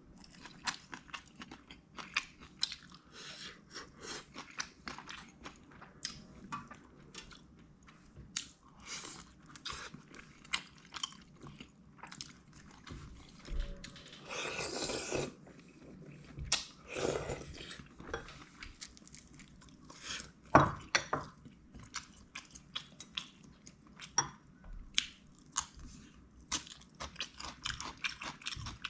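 Close-miked eating sounds: steady chewing with many short crisp crunches, a few longer noisy swells around the middle, and one sharp loud click about two-thirds of the way through.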